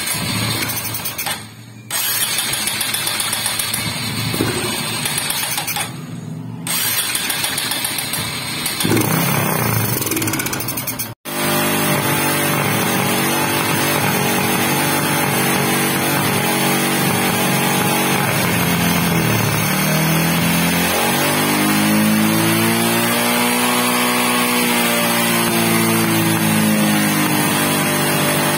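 Honda XRM125 motorcycle's single-cylinder four-stroke engine being started in several tries, then running steadily, its pitch dipping and then rising and falling as the throttle is worked. This is the hard-starting engine running again after its clogged carburetor jets were cleaned.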